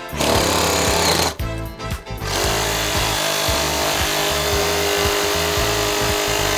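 Ryobi RRS18-0 cordless reciprocating saw cutting through a wooden block, its blade running smoothly without jumping. It stops briefly about a second and a half in, then runs steadily again.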